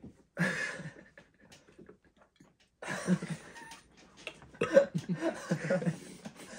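People trying tiny burps and giggling: a short throaty burst about half a second in, then rapid bursts of giggling from about three seconds on.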